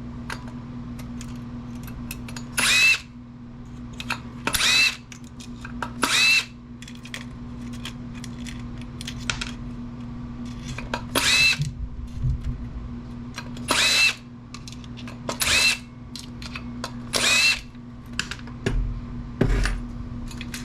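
Power drill-driver run in seven short whining bursts of about half a second, backing out screws, with light clicks of parts being handled between bursts. A steady low hum runs underneath.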